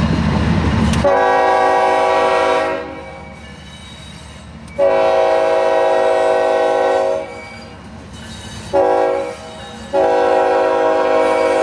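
Diesel freight locomotive's horn sounding a chord of several steady tones in the grade-crossing pattern: two long blasts, a short one, then a long one that is still going at the end. A loud, low locomotive rumble comes just before the first blast.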